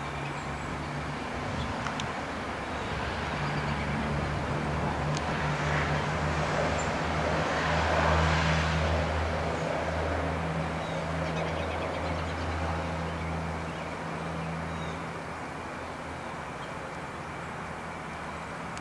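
Low engine drone of a passing motor vehicle, swelling to its loudest about eight seconds in and then fading to a steady hum.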